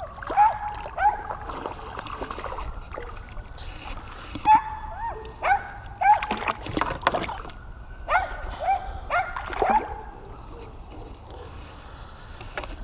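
A duck calling close up with short quacks, several in quick series at a time, over light water splashing.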